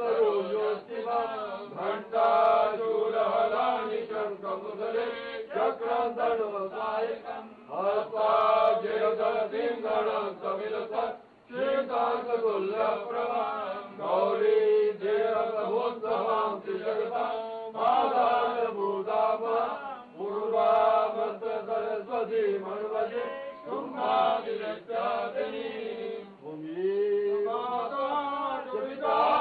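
A man chanting mantras in a steady recitation, phrase after phrase, holding a fairly even pitch with short pauses for breath.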